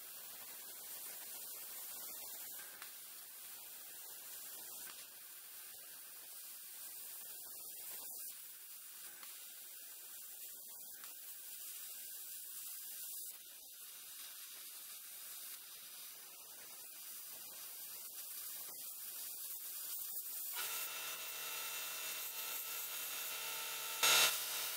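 Faint, steady rubbing and sawing of a hand tool working a workpiece. About twenty seconds in a steady low hum starts, and a sharp knock comes at the very end.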